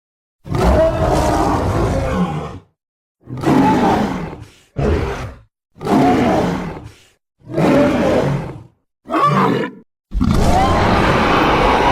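Night Fury dragon roar sound effects: six separate rough roars and growls, each one to two seconds long with dead silence between them, then a longer continuous roar starting about ten seconds in.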